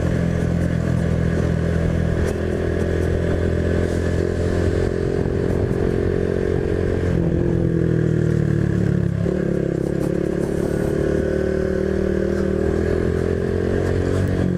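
Honda Biz 125's single-cylinder four-stroke engine running as the motorcycle rides along, a steady note that shifts slightly about seven seconds in and dips briefly about nine seconds in.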